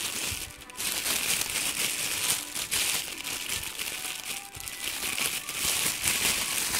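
Clear plastic wrapping crinkling and crackling as hands handle it, almost continuously, with a couple of brief lulls.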